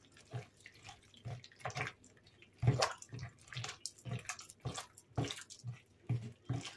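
A bare hand squeezing and mixing soft margarine, powdered sugar, eggs and oil in a plastic bowl: repeated wet squelches, roughly two a second.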